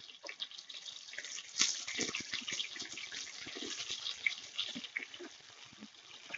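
Green chillies and sliced onion sizzling and crackling in hot oil in a kadai. The sizzle grows louder about a second and a half in as a spatula stirs them.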